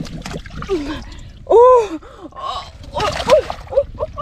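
A woman's short, high-pitched exclamations and cries, the loudest about a second and a half in and several quicker ones near the end, over the splashing of muddy water being worked by hand.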